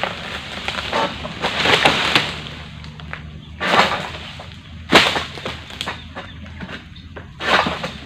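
Egrek, a long-poled palm sickle, being pulled into the frond bases of an oil palm. Each pull gives a rough scraping crunch, in a series of strokes a second or two apart.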